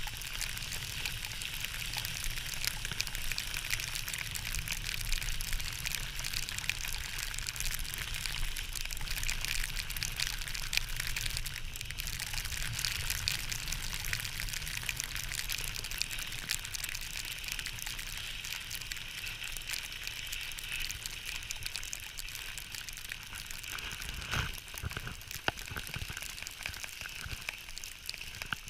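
Skis hissing and scraping over packed snow during a downhill run, with a low rumble of wind on the skier's camera microphone. A couple of sharp knocks come about three-quarters of the way through.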